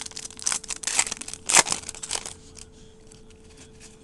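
Foil wrapper of a football card pack crinkling and tearing as it is opened, in a quick run of crackly bursts over the first two seconds, then quieter handling. A faint steady hum runs underneath.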